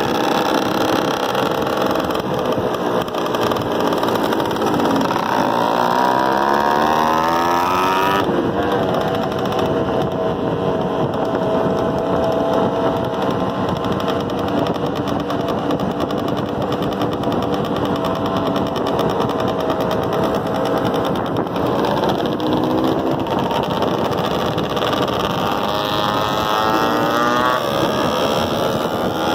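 Motorcycle engines running on a group ride, the nearest one accelerating with its pitch rising twice, from about two seconds in and again near the end, and running steadily in between.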